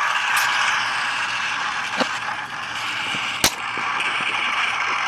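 A steady rushing hiss, broken by two sharp clicks: one about two seconds in and a louder one about three and a half seconds in.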